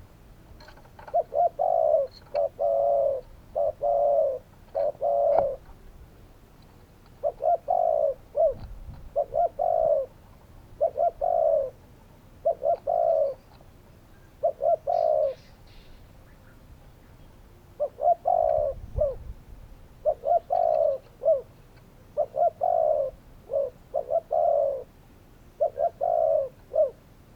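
Spotted dove calling: repeated soft cooing notes in short phrases, with two brief pauses between bouts.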